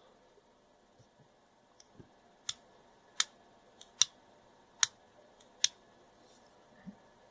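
Five sharp clicks about 0.8 s apart, with a few fainter ticks, from the parts of a dismantled brass rocker light switch being handled.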